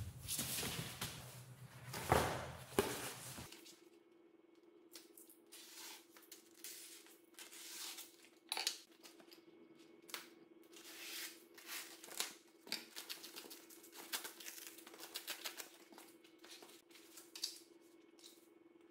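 Handling noises: a few knocks and scrapes of hardboard panels moved on a tile floor, then many short, scattered crinkles and rustles as foam sheet and vinyl upholstery material are handled and cut.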